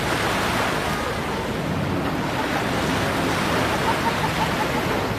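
Surf washing onto a sandy beach, with wind, a steady hiss of noise.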